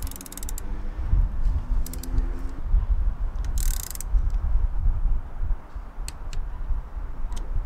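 Ratchet head of a click-type torque wrench clicking in quick runs as an M5 nut is tightened, three runs in the first four seconds, then a few single clicks near the end. A low rumble runs underneath.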